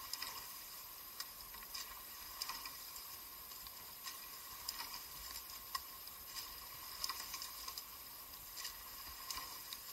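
Faint water splashing and dripping around a rowing eight, with irregular light clicks over a steady hiss.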